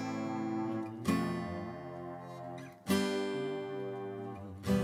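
Background music: acoustic guitar strumming chords, a new chord struck about every two seconds and left to ring out.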